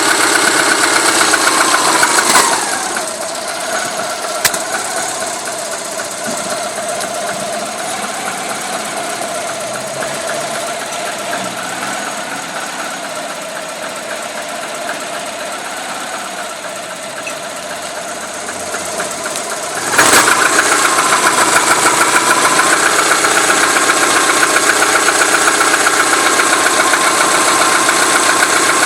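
Subaru Legacy's flat-four boxer engine running cold with a knock, its idle air control valve not working, presumably faulty. The sound is louder at first, drops after a click about two seconds in, and comes back up after another click about twenty seconds in.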